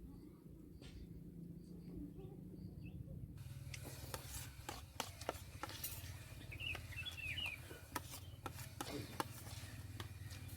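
Faint outdoor background with a steady low hum and scattered sharp clicks, and a few short high chirps about six to seven seconds in.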